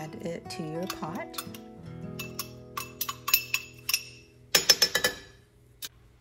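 A metal spoon clinking and scraping against a small drinking glass as minced garlic is scraped out of it into the pot: a quick series of sharp, ringing clinks, loudest about four and a half seconds in. Acoustic guitar music plays underneath and fades out about halfway through.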